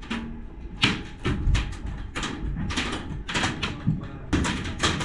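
Airsoft gunfire: an irregular run of sharp clicks and cracks, a few a second, from guns firing and BBs striking walls and doors close by. It grows denser and louder about a second in.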